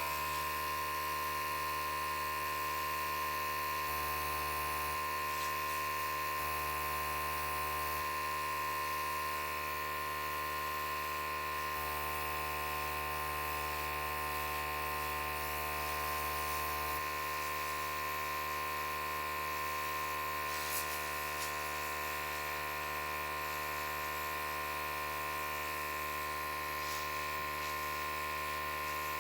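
Electric air gun running with a steady motor hum as it blows acrylic paint across the canvas.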